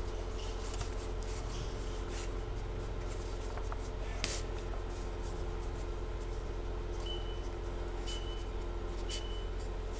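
Handwritten paper cards being shuffled and handled, soft rustling and flicking, over a steady low hum; one sharper tap about four seconds in.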